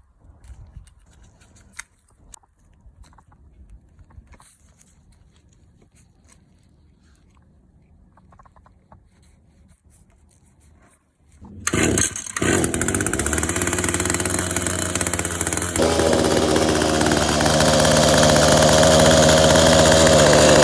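Faint handling clicks and knocks, then about eleven and a half seconds in the small two-stroke engine of an Echo HC-152 hedge trimmer starts and runs. About four seconds later it runs faster and holds a steady, higher pitch; this is the engine running after a tune-up with a new carburettor.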